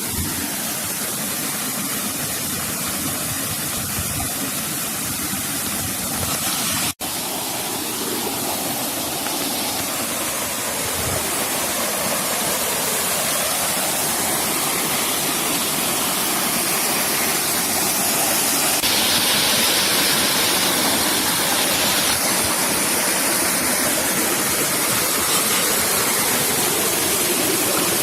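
Waterfall: a steady, loud rush of falling water, broken by a momentary gap about seven seconds in and growing slightly louder in the second half.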